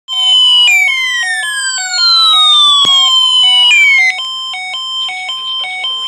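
Midland weather radio sounding its warning alarm: a steady hi-lo pattern of alternating tones, with loud falling sweeps layered over it for about the first four seconds, after which it goes on quieter. It signals a NOAA Weather Radio warning, here a Special Marine Warning, received on 162.400 MHz.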